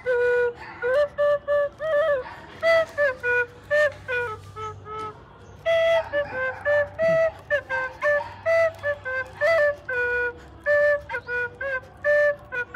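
Bamboo bansuri flute blown through the nose, playing a simple melody of short held notes that step up and down in pitch, broken by brief pauses.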